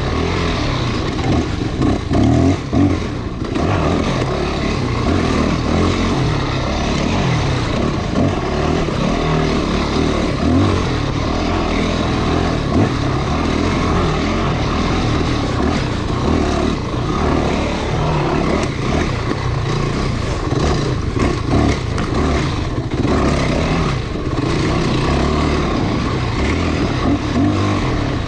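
Off-road motorcycle engine running under load along a dirt trail, its engine speed rising and falling. A steady rush of wind and riding noise runs over it.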